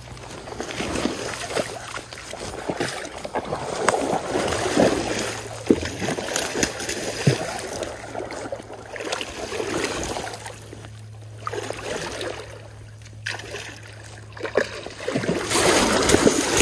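Water splashing and sloshing in a shallow stream as a hooked fish thrashes at the surface beside a rubber landing net and is brought in, with wading through the water. The splashing comes in irregular bursts and is loudest near the end.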